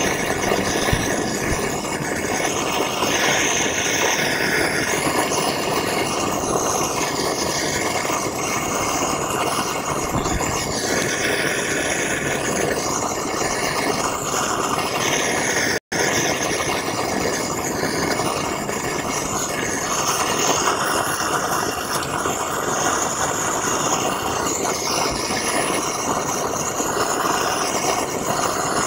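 Gas torch burner running steadily, its flame hissing into a frying pan of aluminium scrap as the metal melts. The sound cuts out for an instant about halfway through.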